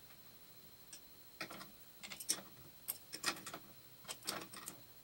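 Irregular small metallic clicks and taps from brass pipe fittings being handled and screwed together by hand on a steel machine vise, starting about a second in.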